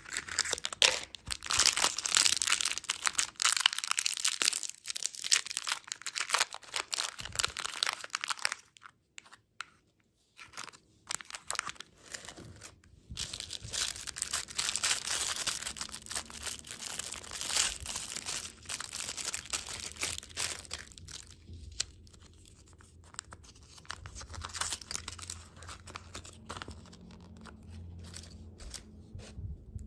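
Plastic candy wrappers crinkling and tearing as they are opened, in two long spells of dense crackling with short pauses between, then quieter scattered rustles near the end.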